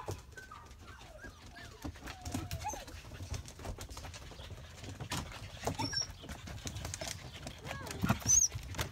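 Puppies whining faintly in short, wavering calls, with scattered small clicks and taps.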